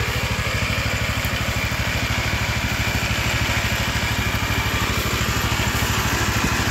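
Quad ATV engine idling steadily while its electric winch reels the cable in.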